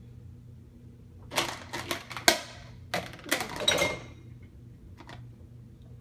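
Cups and dishes being set into a dishwasher's wire rack: a quick run of clatters and knocks of plastic and glass against the rack, the sharpest about two seconds in, and one faint click near the end.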